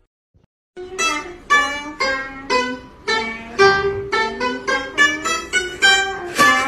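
A pipa being plucked: a melody of single plucked notes starting about a second in, roughly two a second at first and quicker toward the end.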